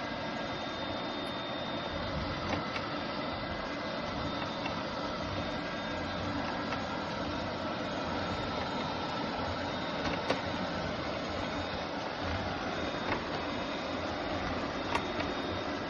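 A machine running steadily: an even whirring noise with a faint high whine over it and a few small clicks.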